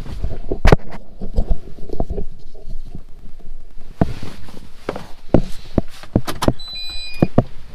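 Clunks and knocks as someone climbs into a Manitou telehandler's cab and handles the controls. Near the end an electronic dashboard beep starts, as the ignition is switched on.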